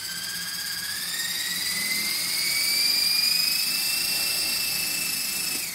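The small electric motors of a homemade twin-rotor model helicopter whining as both rotors spin, the pitch rising steadily as the throttle is pushed up. The whine drops away right at the end as the motors are throttled down.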